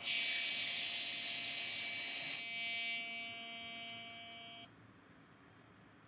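Compressed-air blow gun on a compressor hose hissing loudly, cut off about two and a half seconds in. A fainter hiss with thin whistling tones follows and stops a little past the middle.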